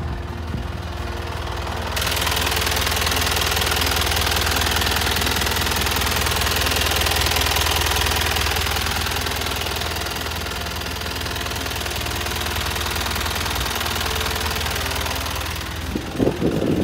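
Toyota Dyna truck's engine idling steadily. It turns louder and brighter from about two seconds in, heard close over the open engine bay under the tilted cab, and eases back near the end. A few low bumps follow.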